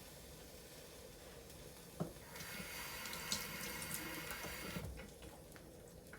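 A click, then a kitchen tap runs for about two and a half seconds and is shut off.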